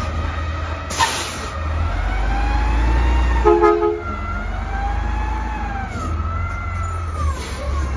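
Natural-gas front-loader garbage truck pulling away: a steady low engine rumble with whining tones that rise and fall as it drives off. A short hiss of air comes about a second in, and a brief chopped tone about three and a half seconds in.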